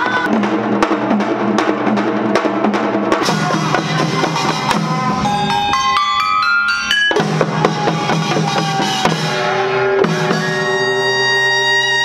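Korean traditional percussion with a band: janggu hourglass-drum strokes over held notes, giving way to a quick run of notes and a long held chord near the end.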